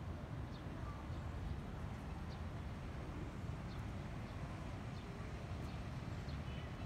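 Outdoor ambience: a steady low rumble with faint, short high chirps now and then.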